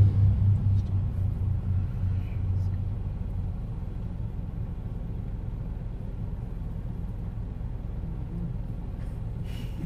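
Twin propeller engines of a Britten-Norman Islander: loud at first as it passes low overhead, fading over the first few seconds into a steady low drone as the aircraft moves off.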